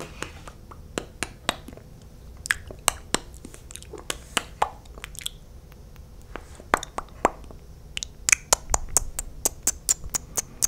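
Close-miked mouth sounds from lip-glossed lips: sticky lips smacking and parting in wet clicks and pops, irregularly spaced, coming quicker and louder about eight seconds in.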